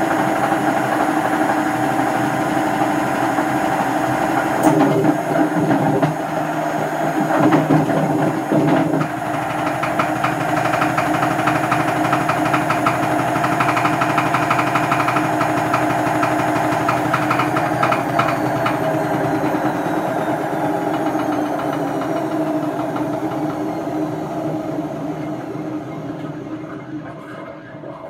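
Hotpoint FEW12 washing machine's drum turning on worn-out drum bearings: a loud, rumbling, crunchy mechanical racket with a fast rattle. Over the last ten seconds a whine falls in pitch and the noise fades as the drum slows.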